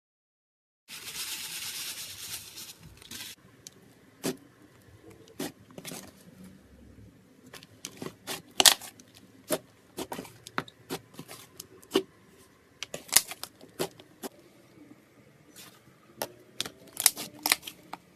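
Slime being squished and pressed by hand, giving irregular sharp clicks and pops. A short rustling hiss comes about a second in, before the clicking starts.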